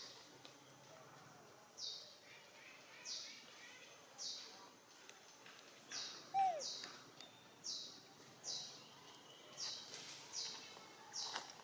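A bird chirping over and over, short high falling notes about once a second, with one brief lower call sliding down about six seconds in.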